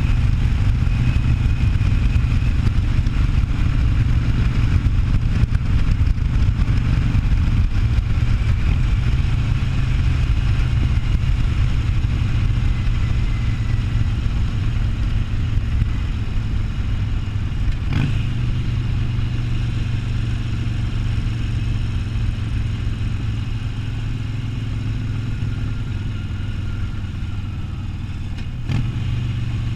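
Harley-Davidson Sportster 1200's air-cooled V-twin engine running steadily while the motorcycle is ridden, easing off over the last third. A short sharp click comes a little past halfway and another near the end.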